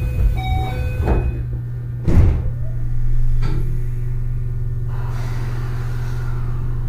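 Heard from inside a Keio 8000 series train car stopped at a station: door chime tones, then the car's sliding doors shutting with a knock about a second in and a loud thud about two seconds in. A steady low hum from the car's equipment runs underneath throughout.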